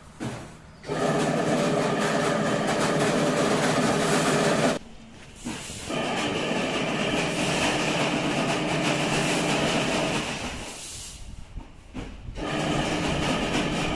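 Machinery running with a steady hum and rattle carrying several pitched tones, dropping out twice for a second or two and starting again.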